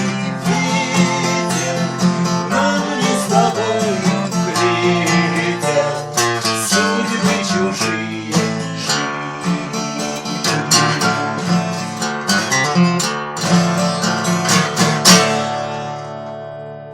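Acoustic guitar strummed in the instrumental close of a song, ending on a last chord about 15 seconds in that is left to ring and fade out.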